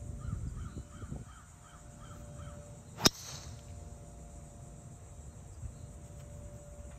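Golf driver striking a ball off the tee: one sharp crack about three seconds in. Before it, a bird gives a quick run of about seven short calls.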